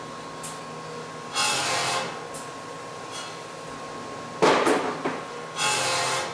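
Marken 500S automatic hydraulic hose cutting machine at work: a steady machine hum with a faint high whine, broken by three short bursts of noise as the hose is fed and cut. The loudest burst starts sharply about four and a half seconds in, and the others come about a second and a half in and near the end.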